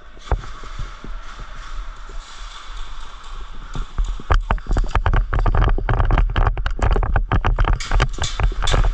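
Quick, irregular knocks and thuds, sparse at first and then dense from about four seconds in, like running footsteps with gear rattling and a body-worn microphone being jostled.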